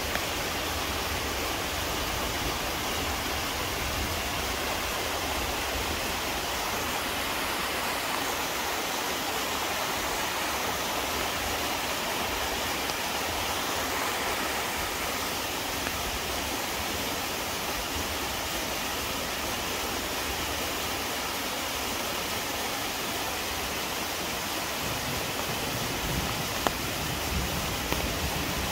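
Chilyeon Falls, a mountain waterfall, pouring steadily: an even, unbroken rush of falling water, with a couple of tiny clicks near the end.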